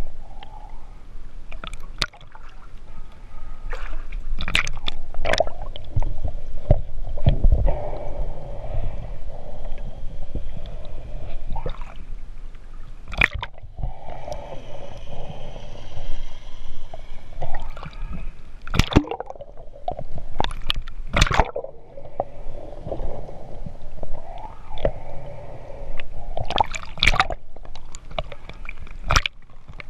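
Water gurgling and sloshing around a camera moved underwater through a flooded boat cabin, with repeated sharp knocks and bumps from the camera being handled and touching the boat.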